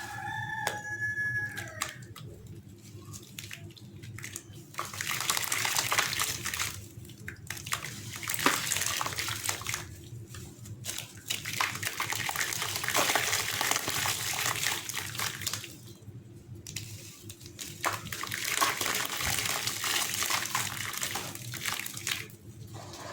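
Gritty sand-cement chunks crumbling and fizzing apart in water, a dense crackle that comes in three long spells with short lulls between them. A brief pitched chirp sounds right at the start.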